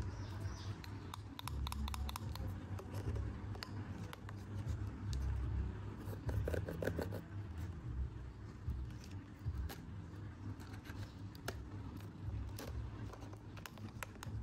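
Hard plastic clicking, tapping and rattling as a toy cash register and its corded scanner are handled and turned over, with a rapid rattle about halfway through, over a steady low rumble.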